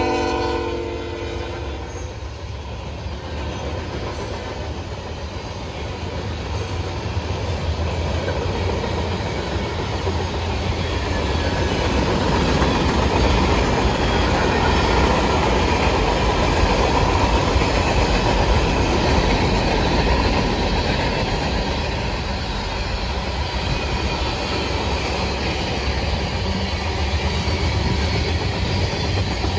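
Norfolk Southern freight train passing close by: the tail of a diesel locomotive's horn dies away within the first second, then the steady sound of boxcars and tank cars rolling along the rails, growing somewhat louder about a dozen seconds in.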